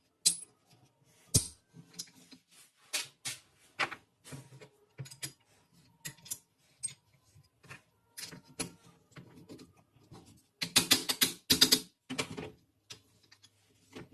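Scattered sharp clicks and knocks from a Mauser rifle's parts being handled and fitted together, with a quick run of rapid clicks about eleven seconds in.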